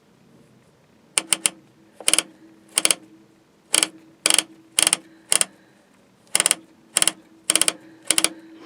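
Drum-brake star-wheel adjuster being turned out, its teeth clicking past the self-adjuster lever in short rapid ratcheting bursts about every half second. The brake shoes are being brought closer to the drum.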